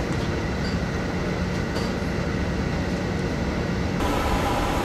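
Steady rushing noise and low hum of an airliner heard from inside the aircraft, changing in character abruptly about four seconds in.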